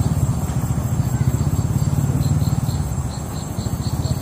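Insects chirping: a row of short high chirps about five a second with a steady high trill above, over a fast-pulsing low rumble.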